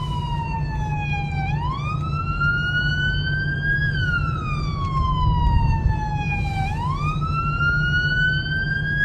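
Emergency-vehicle wail siren sweeping slowly up and down, about a five-second cycle. Each cycle jumps up quickly, climbs on more slowly, then falls away gradually. A steady low engine and road rumble runs underneath.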